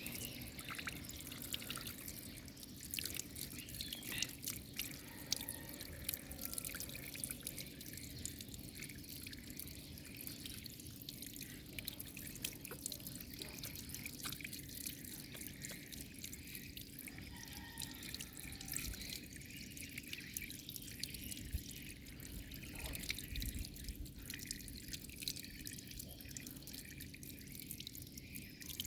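Shower water running and spattering, with a steady patter of drips and splashes.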